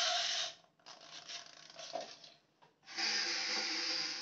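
Small battery motor of a toy speedboat running with a rasping buzz, its propeller churning and spraying water. It stops about half a second in and starts again about three seconds in.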